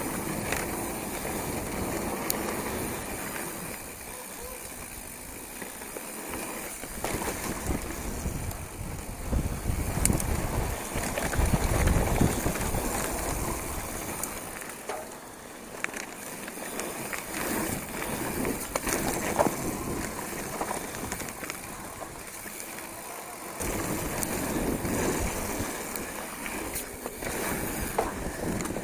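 Hardtail mountain bike descending a dirt trail, heard from a camera mounted on the bike or rider: tyres rolling over loose dirt and rocks, the frame and parts rattling with sharp knocks over bumps, and wind rushing over the microphone. The rumble is heaviest about ten to thirteen seconds in.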